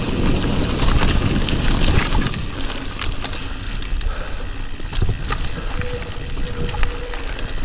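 Mountain bike riding fast down a dry gravel singletrack, heard from a handlebar-mounted action camera: wind buffeting the microphone and tyres rolling over gravel, with frequent sharp rattling clicks from the bike over the bumps. The wind rumble is heaviest in the first two seconds and eases after.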